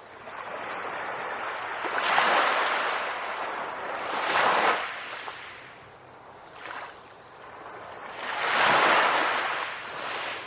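Ocean waves breaking and washing up a shore, with a steady surf hiss that swells in three surges, the loudest late on.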